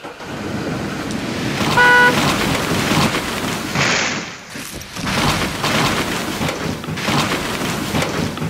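A felled fir tree crashing down onto a truck: a long, noisy crash and rumble that swells again several times. A short car-horn toot about two seconds in marks the loudest moment.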